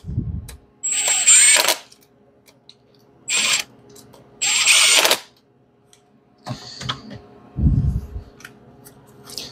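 Milwaukee 18V 1/4-inch hex impact driver tightening bolts in three short bursts, with a high whine over the hammering. Two low thumps, one near the start and one near the end.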